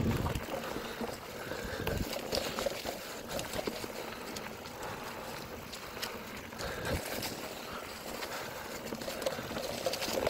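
Bicycle tyres rolling over a dirt forest trail strewn with dry leaves: a continuous crackling rustle, with a few low thumps.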